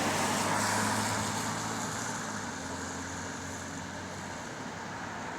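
Bus engine running steadily under even road and cabin noise, heard from inside the bus, easing off slightly toward the end.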